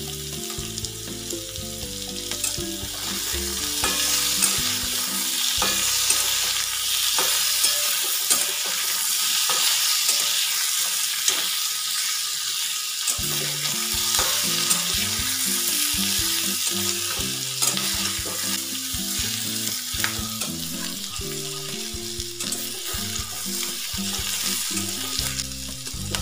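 Cubed potatoes sizzling steadily in hot oil in a metal kadai, with the scrapes and clicks of a flat metal spatula stirring them.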